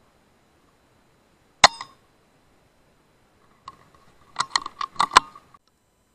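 A PCP air rifle fires once with a short sharp crack, followed by a smaller click. About two seconds later comes a quick run of metallic clicks and clinks as the bolt is worked to load the next pellet.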